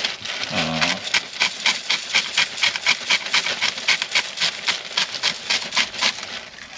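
Hand-twisted spice grinder grinding over an open zip-lock bag: a rapid, even gritty crunching of about five grinds a second, cutting off just before the end. A short bit of voice about half a second in.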